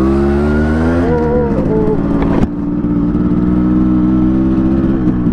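Yamaha RX 100's single-cylinder two-stroke engine running: the revs climb over the first second and fall away, then after an abrupt break about two and a half seconds in it holds a steady speed.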